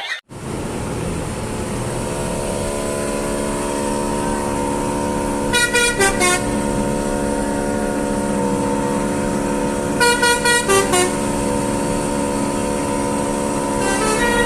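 Telolet Basuri musical multi-tone car horn sounding a steady held chord, with quick runs of notes about six and ten seconds in and a melody of changing notes starting near the end, over a low vehicle rumble.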